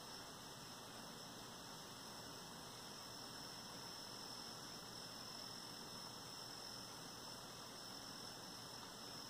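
Faint steady hiss with a thin, constant high-pitched whine: the recording's own background noise, with no knitting-needle clicks heard.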